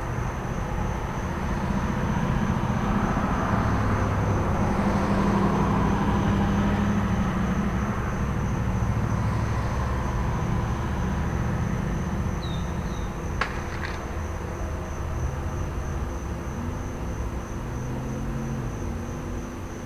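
Crickets chirping in a steady high pulse over the low rumble of idling trucks and passing traffic, which swells during the first half. Two sharp snaps of small firecrackers come about two-thirds of the way through.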